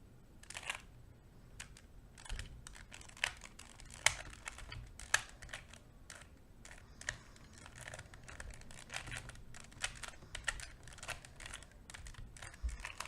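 Plastic 2x2 Rubik's cube being turned by hand: quick, irregular clicks and clacks of the layers snapping round, in short runs.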